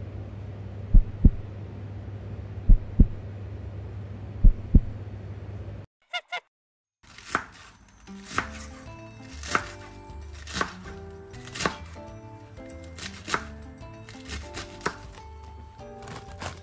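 A steady low hum with paired low thumps about every second and a half. After a brief break comes background music, with sharp, regular knife chops through napa cabbage on a wooden cutting board.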